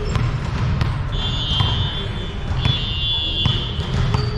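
Referee's whistle blown in two blasts of just under a second each, a steady shrill tone, over the echoing noise of a volleyball gym.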